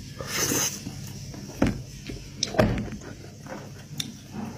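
Close-miked eating of boiled sheep's head: mouth noises of biting and chewing the meat, with two dull thumps, the loudest sounds, about a second and a half and two and a half seconds in, and a small click near the end as meat is pulled from the skull by hand.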